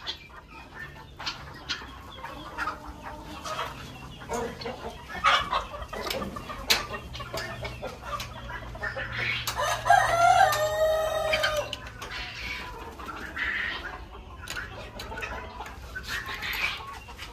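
Chickens clucking, and a rooster crows once about halfway through, a call about two seconds long.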